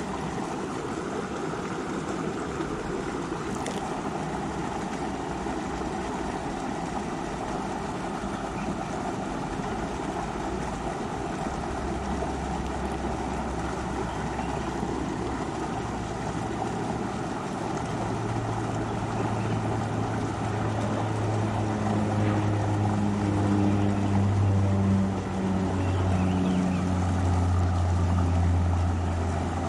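River water rushing over rocks, a steady even noise. In the second half a low droning hum comes in, its pitch shifting in steps, and grows louder toward the end.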